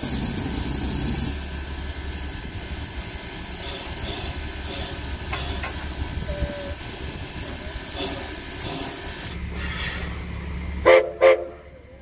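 Narrow-gauge steam locomotive No. 425 standing, with a steady hiss and rumble, then two short blasts of its steam whistle near the end. Two short blasts are the usual railroad signal to move ahead.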